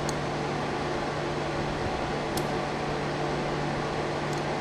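Steady hum and hiss like a running fan, with a low constant tone underneath, and three faint light ticks spread across it.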